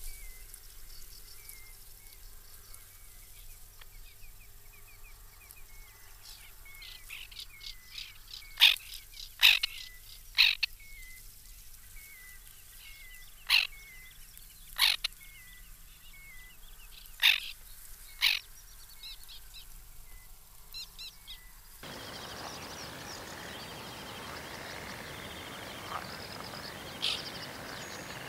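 White-winged terns calling: a scatter of short, sharp calls, loud and spaced a second or more apart, over faint repeated chirping. About two-thirds of the way through, the background changes suddenly to a louder even hiss, with a couple more distant calls.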